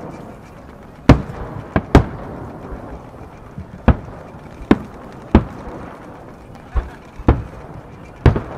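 Aerial firework shells bursting overhead: about nine sharp booms at uneven intervals, some in quick pairs, each with a short echoing tail.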